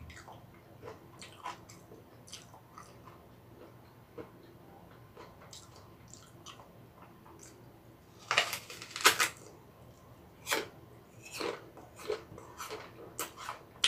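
Teeth biting into a whole crisp green Aori apple: a loud crunch and snap about eight seconds in, then crunchy chewing of the apple.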